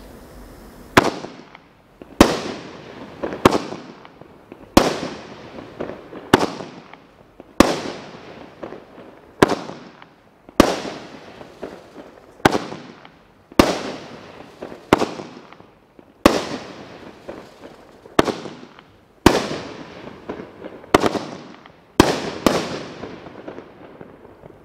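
'Rifle Range Ahead' consumer fireworks cake firing shot after shot, about seventeen in all, roughly one every second or so. Each is a sharp bang followed by a crackling tail that fades before the next shot.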